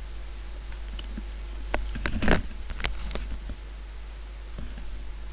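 A few sharp clicks and one soft knock between about one and three seconds in, over a steady low hum.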